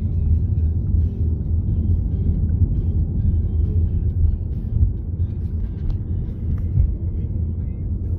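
Steady low rumble of a car's road and engine noise, heard from inside the moving car's cabin.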